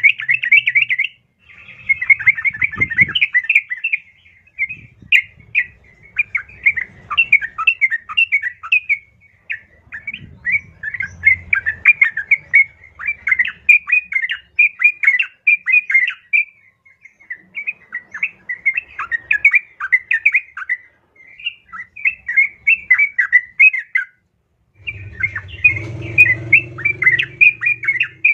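Female yellow-vented bulbul (trucukan) giving fast, continuous chattering calls, a female calling to a male. A low rumble is heard underneath near the end.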